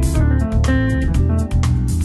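Background music: plucked guitar notes over a bass line, with a quick steady rhythm.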